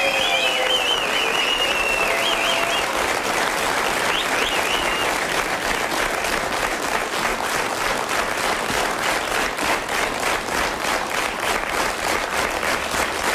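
Studio audience applauding steadily; from about eight seconds in the clapping falls into a rhythmic beat, clapping together in time.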